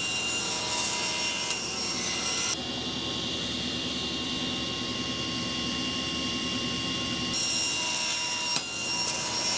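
Table saw running steadily, its blade crosscutting the ends of a glued-up panel of small wooden diamonds pushed through on a miter gauge jig. The sound changes abruptly about two and a half seconds in and changes back about seven seconds in.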